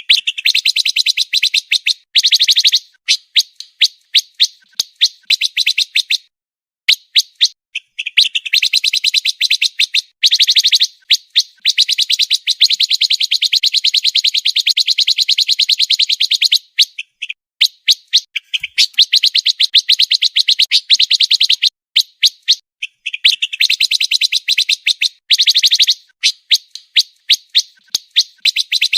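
Pancawarna songbird singing a fast, tightly packed song: runs of rapid, high, sharp chirps strung close together, coming in bursts with brief pauses between them.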